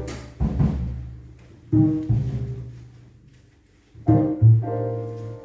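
Jazz trio of piano, double bass and drums playing: a few struck notes die away to a near pause about three and a half seconds in, then sustained piano chords ring over a low note.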